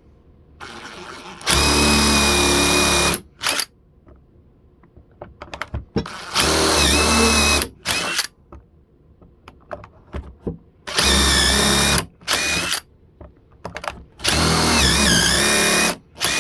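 Electric drill boring dowel holes through wood, running in four bursts of one and a half to two seconds each with small knocks between. In the last burst the motor's whine sags and wavers as it loads up.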